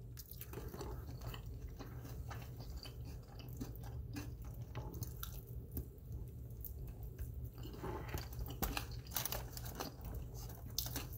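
A person chewing and biting honey barbecue chicken wing meat off the bone, with irregular small clicks and crunches, busier near the end.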